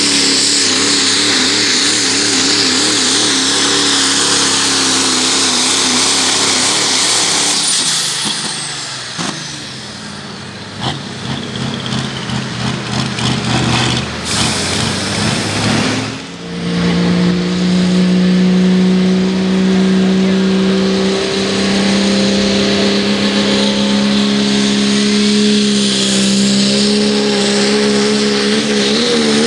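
Turbocharged diesel engine of a pro stock diesel pulling truck at high revs under load, its pitch wavering, then winding down about eight seconds in as the pull ends. After a break, a second diesel pulling truck's engine holds a loud, steady high rev, and its pitch starts to waver again near the end as it moves off.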